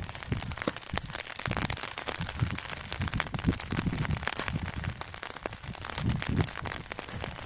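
Dense, irregular crackling of plastic, with repeated low thuds of a shovel digging into wet soil.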